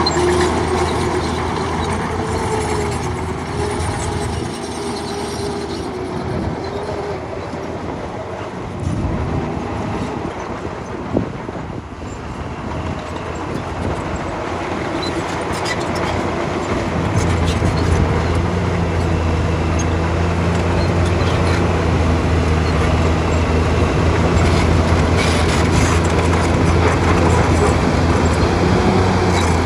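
Bulldozer's diesel engine running with the clatter of its steel tracks. There is a single sharp knock about eleven seconds in, and the engine grows louder and steadier about seventeen seconds in.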